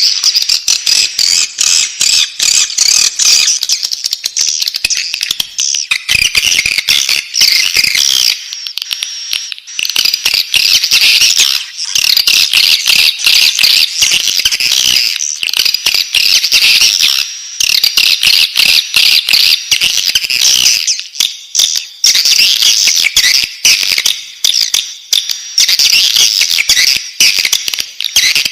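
Swiftlet chicks calling in the nest: a loud, continuous, high-pitched chattering of rapid chirps.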